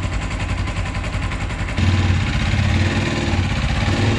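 Freshly rebuilt Blackbird 250 motorcycle engine idling steadily, getting louder a little under two seconds in. It runs evenly without the ugly noise it made before the repair, a sign that the cylinder damage from oil starvation has been fixed.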